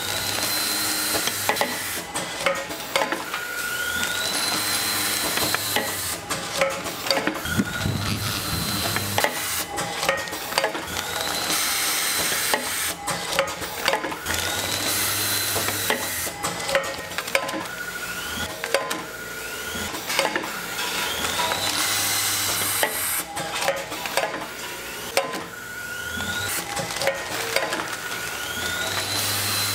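Food-factory machinery working in a repeating cycle every few seconds. A whine rises and levels off, with a low hum and frequent clicks and clatter throughout.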